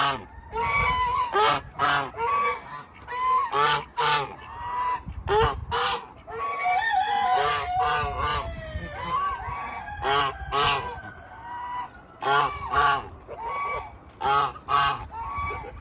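Farm geese honking, many short calls repeating and overlapping, with one longer drawn-out call in the middle.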